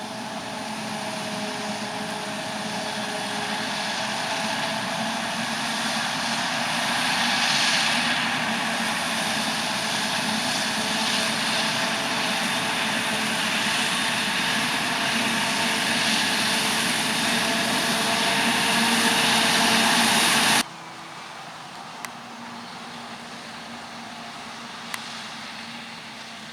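Heavy farm machinery at the maize harvest: a diesel engine running with a steady whine that grows louder for about twenty seconds. The sound then cuts abruptly to a quieter machine running, with a few faint clicks.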